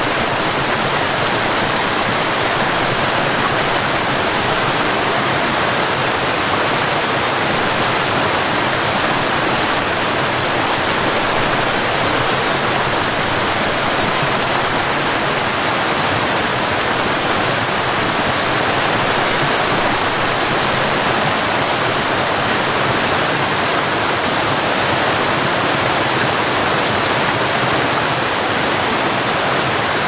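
A tiered waterfall cascading over rock ledges: a steady, unchanging rush of falling water.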